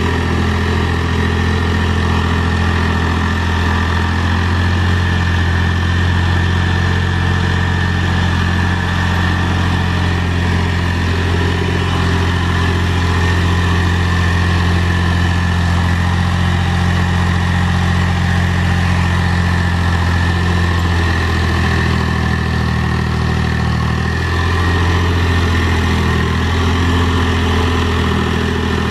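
Mahindra 3525 tractor's three-cylinder diesel engine running steadily under work as it pulls a box blade through dirt, with a thin steady whine above the engine note. The engine note shifts a little about twenty seconds in.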